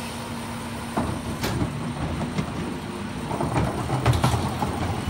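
Garbage truck engine running, with a few knocks and the rattle of plastic wheeled trash bins being rolled back over the pavement.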